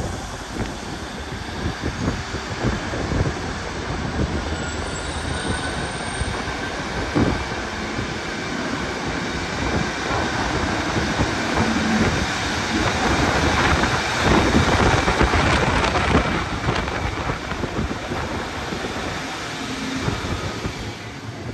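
Class 153 diesel multiple unit running slowly along the platform, its diesel engine and wheels on the rails growing louder as it comes past, loudest a little after the middle, then easing off near the end.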